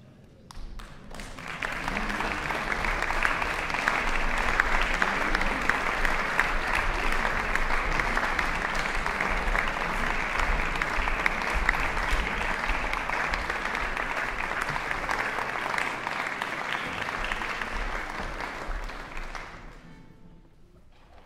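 Concert audience applauding: the clapping swells about a second in, holds steady, then dies away near the end.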